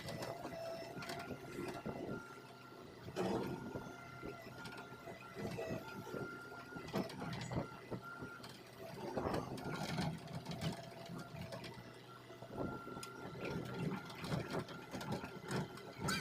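Hitachi Zaxis hydraulic excavator working: a whine that comes and goes several times, over irregular clanks and knocks.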